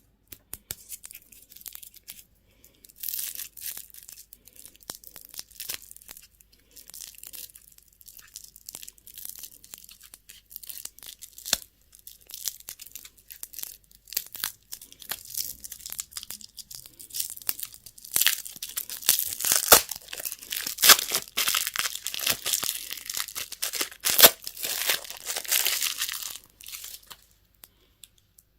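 Crinkly candy packaging being handled and torn open by hand: irregular crackling and tearing with many small sharp clicks. It grows busier and louder in the second half and stops shortly before the end.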